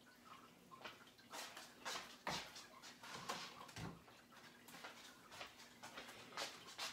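Faint, scattered clicks and soft knocks of kitchen handling, a utensil or knife moving chicken about in meal-prep containers.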